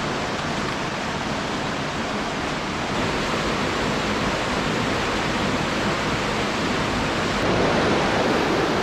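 Rushing creek water, the steady roar of a high-flowing stream and cascades, getting a little louder partway through and again near the end.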